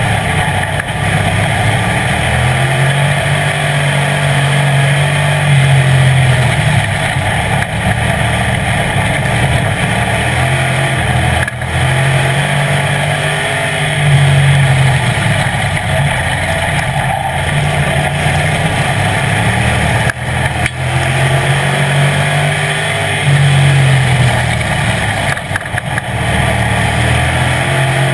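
Street stock race car engine at full racing speed, heard from inside the car: it climbs in pitch and drops off again and again, every few seconds, as the driver runs down the straights and lifts off into the turns.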